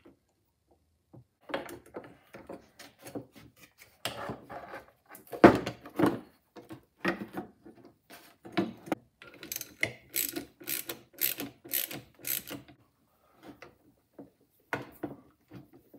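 Metal parts of a wiper transmission linkage clicking and knocking as they are handled and worked with a hand tool, a bolt being turned into its threads. About ten seconds in comes a run of sharp, evenly spaced clicks, about two a second, for a few seconds.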